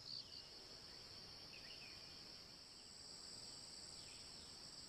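Faint, steady high-pitched drone of forest insects. A second, higher steady tone joins about three seconds in.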